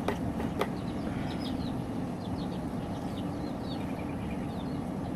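Small birds chirping in short high calls over a steady low rumble, with a couple of sharp clicks near the start.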